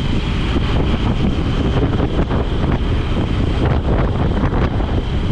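Wind buffeting the camera's microphone over a motorcycle running along the road, a steady low rumble and rush with no break.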